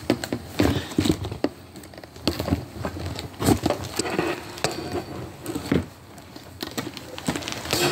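Handling noise from a phone and its stand being picked up and resettled: irregular knocks, clicks and rubbing close to the microphone.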